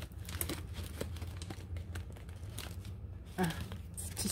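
Sparkly glued packaging pouch crinkling and tearing as it is pulled open, in short scattered crackles that ease off partway through, with a brief vocal sound near the end.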